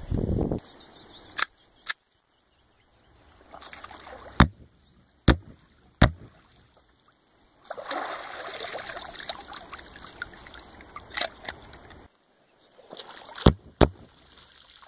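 A .40 S&W Glock 22 pistol fired underwater with its factory spring cups: about eight sharp, short cracks at irregular intervals. Water splashes and sloshes for several seconds in the middle.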